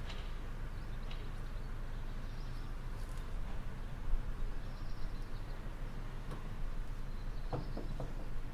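Outdoor background ambience: a steady low rumble with a few faint high chirps, and a short run of knocks near the end.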